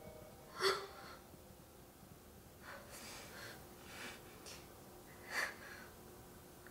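A woman crying quietly, catching her breath in short, noisy breaths. The loudest comes about half a second in, a few weaker ones follow, and another strong one comes just after five seconds.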